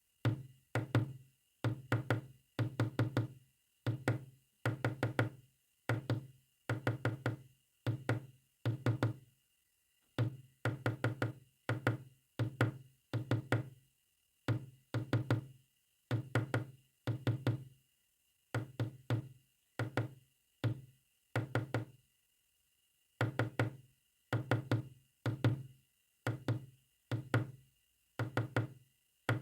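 Sharp knocks on a hard surface, tapped in quick groups of two to five, a bit under one group a second, with one longer pause about three-quarters of the way through: Morse code being knocked out.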